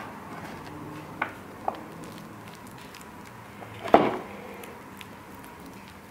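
Hands working a floured ball of dough on a wooden board, with a couple of small clicks. About four seconds in, a bowl knocks against the wooden tabletop, the loudest sound.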